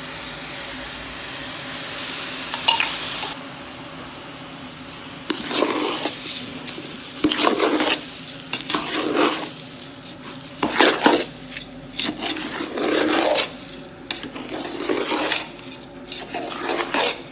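Masala water poured onto ghee-fried rice in a hot aluminium pot, giving a steady hissing sizzle for about three seconds. Then a ladle stirs the rice around the pot in a string of scraping strokes, roughly one a second.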